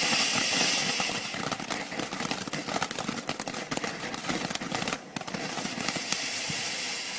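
Consumer firework going off: a hissing spray, then a dense run of rapid crackling pops that thins out about five seconds in.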